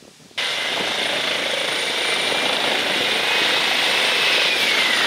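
Airbus H135 air-ambulance helicopter hovering low: loud, steady rotor and turbine noise with a high whine that sags slightly in pitch near the end. It cuts in abruptly about half a second in, after faint rustling of grass.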